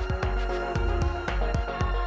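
Electronic background music with a steady, heavy beat and sustained notes.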